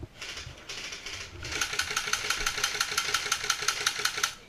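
Airsoft electric gun firing a sustained full-auto burst of rapid, evenly spaced shots, about nine a second, for nearly three seconds. Two brief bursts of noise come before it.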